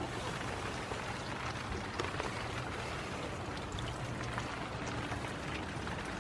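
Steady rain falling, with scattered single drops tapping close by.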